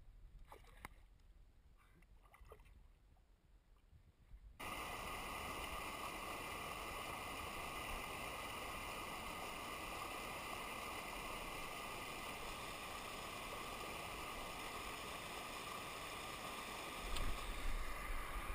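Faint small splashes and ticks of water at first. About four and a half seconds in, a sudden cut brings a steady, loud rush of churning white water.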